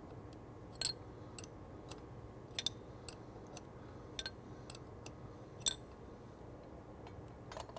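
Small ratcheting wrench turning the forcing screw of a mating-ring puller, giving light metallic clicks at uneven spacing, about one every half second to a second, the loudest a little past the middle. The screw bears on the gearbox input shaft and draws the carbon seal's mating ring out of its recess.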